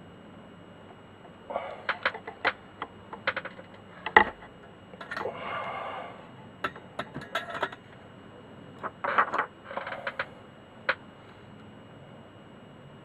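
Small tools and wires handled on a workbench during soldering: a run of irregular clicks, taps and short scrapes, with one louder knock about four seconds in.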